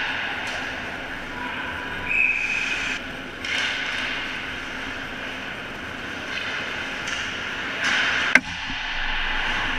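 Ice hockey play close to the goal: skate blades scraping and carving on the ice in rising and falling swells, with one sharp crack about eight seconds in, the loudest sound.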